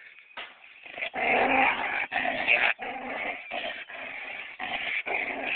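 Dog growling, beginning about a second in as a run of long, loud growls with short breaks between them.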